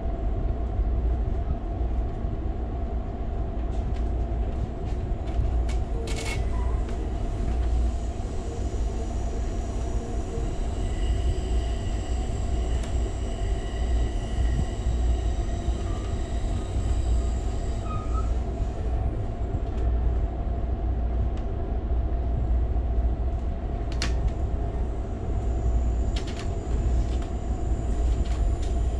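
Steady low rumble of a passenger rail car rolling along the track, heard from inside, with a constant hum, a couple of sharp clicks, and a faint high whine for about ten seconds in the middle.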